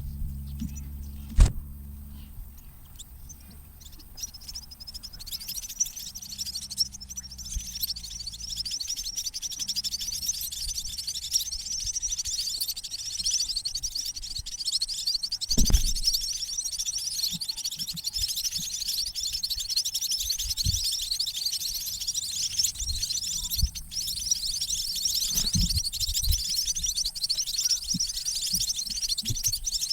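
Eurasian tree sparrow nestlings begging with a dense, rapid, high-pitched chirping that builds from about five seconds in, the sound of young being fed by their parents. A low hum fades out early on, and a few sharp knocks fall about a second and a half in, midway, and near the end.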